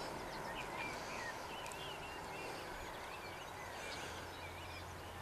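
Small songbirds chirping and warbling over a faint steady outdoor hiss, with a low steady hum joining about halfway through.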